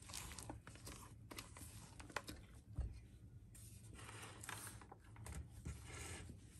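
Silicone spatula folding thick cake batter in a stainless steel mixing bowl: faint, irregular wet scrapes against the bowl's side with a few light clicks.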